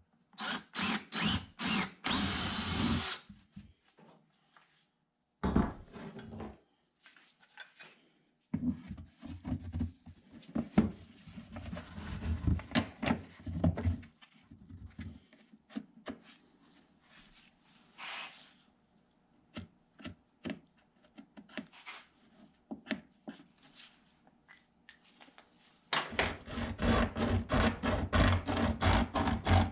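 Hand-tool work on the painted metal bucket of a vintage hand-crank ice cream maker. First a drill is run in short pulses and then held for a second. Scraping and rubbing strokes with knocks follow, then near the end a fast even run of scraping strokes, several a second.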